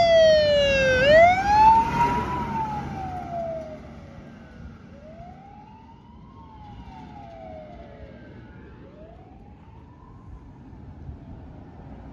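Fire tanker truck's wail siren rising and falling in slow sweeps, loud as the truck passes and then fading to faint as it moves away. Underneath is the low rumble of vehicle engine and tyre noise.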